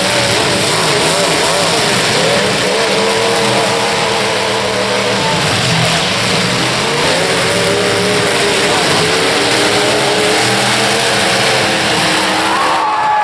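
Demolition derby cars' engines revving, several at once, their pitch rising and falling unevenly over a continuous loud din.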